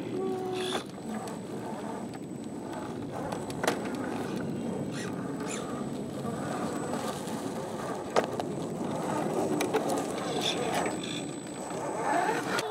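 Axial SCX10 II scale RC crawler climbing over rocks: its electric motor and geared drivetrain running, with its tyres rolling and scrabbling on rock and dry leaves. Two sharp knocks, a few seconds apart, as the truck bumps against the rock.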